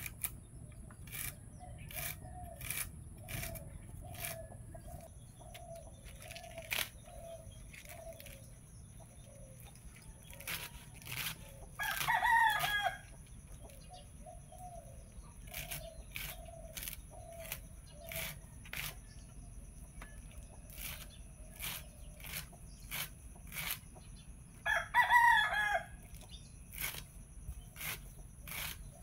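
Knife cutting through bunches of radish and cabbage leaves, short sharp cuts about every second, irregular. A rooster crows twice, about halfway through and near the end, louder than the cutting, and a hen clucks in runs of short calls.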